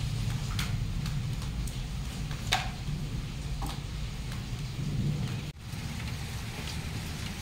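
Heavy rain with water leaking through the roof and dripping onto a wet concrete floor: a steady low rumble under scattered sharp drops, the clearest about two and a half seconds in.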